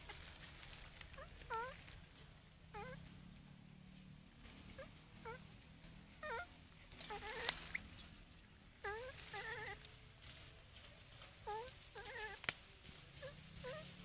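Baby monkey calling: faint, short coos that rise and fall in pitch, repeated every second or so, sometimes two or three in quick succession. A couple of sharp clicks come partway through and near the end.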